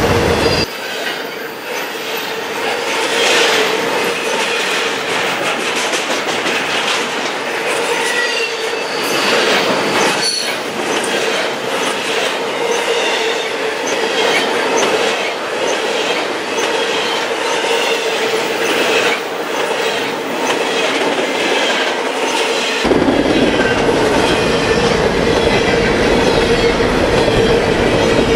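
Double-stack intermodal freight cars rolling past at speed: a steady rumble and hum of steel wheels on rail, with rapid clicking over rail joints and short, high wheel squeals. The deep low rumble drops away about a second in and returns near the end.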